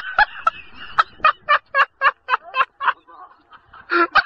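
A person laughing hard in rapid, high-pitched bursts, about four a second, breaking off for about a second and starting again near the end.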